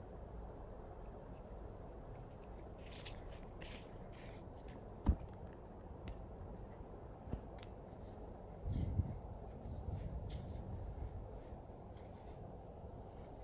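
Hands handling a cleaning wipe and an iPad: soft rustles and small clicks, one sharp knock about five seconds in, and a stretch of rubbing and bumping from about nine to eleven seconds in.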